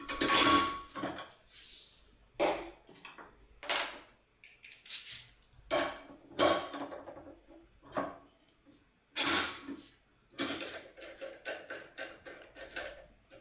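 Foil-impression lock pick being worked in a TESA ST6 pin-tumbler cylinder: an irregular run of short metallic clicks and scrapes as the tool is rocked left-right and up-down in the keyway.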